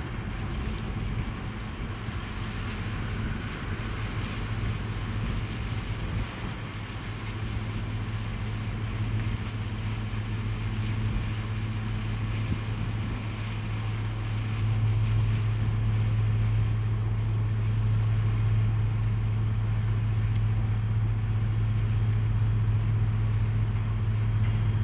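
Small car ferry's diesel engine running with a steady low drone as it pulls away from the landing, stepping up louder about halfway through as it gets under way.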